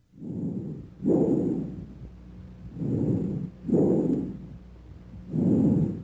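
Normal bronchial breath sounds heard through a stethoscope over the manubrium: about three breaths, each heard as an inspiration and an expiration separated by a brief silent gap.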